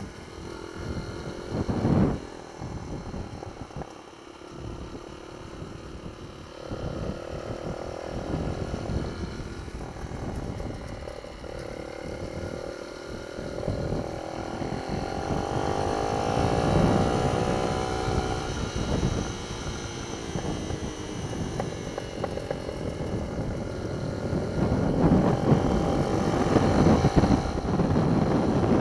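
Minibike engine running under riding, its pitch rising and falling again and again as the throttle opens and closes through the corners, with wind buffeting the microphone. There is a short louder knock about two seconds in.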